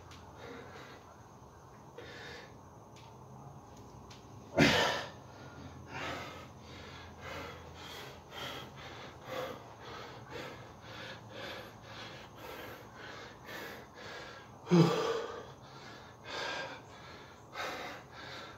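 A man panting hard after a kettlebell set, about two breaths a second, with two much louder gasping breaths, one about four seconds in and one near the end.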